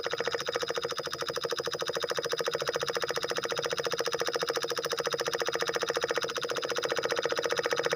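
Homemade miniature PVC diesel engine running steadily, with a rapid, even chugging beat.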